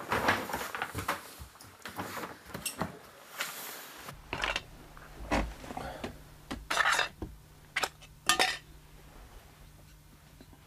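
Metal kettle and its lid clinking and clattering as they are handled, among scattered knocks and scrapes, with the loudest clatters near the end.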